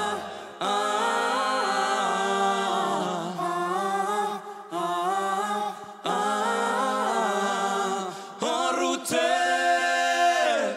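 Background music of a cappella singing, voices without instruments, sung in phrases of about two seconds with short breaks between them.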